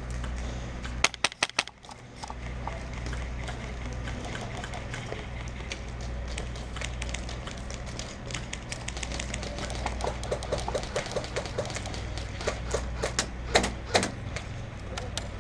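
Airsoft gunfire: a quick burst of about five sharp pops about a second in, a rapid string of fainter shots around the ten-second mark, and a few more loud single shots near the end, over a steady low rumble.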